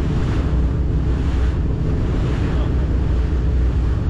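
A motor boat's engine running steadily, with wind buffeting the microphone and water rushing along the hull in surges.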